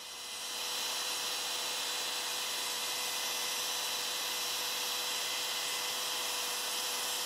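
Compact wood router running steadily as it freehand-routes a shallow pocket in hardwood with a small 1/8-inch bit: an even motor whine and cutting noise that swells up over the first second and then holds level.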